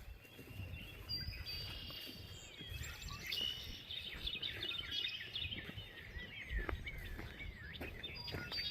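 Songbirds chirping and singing, many overlapping short chirps, whistles and trills, fairly faint, over a low rumble.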